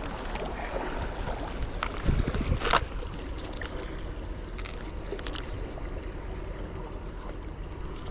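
Wind buffeting the microphone over small waves washing against jetty rocks, a steady rushing with a low rumble. A couple of short sharp clicks about two and nearly three seconds in.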